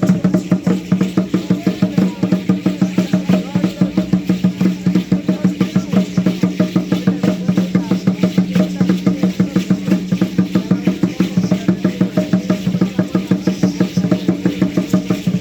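Drumming for an Aztec dance: a fast, even drum beat of about five to six strokes a second that keeps going without a break.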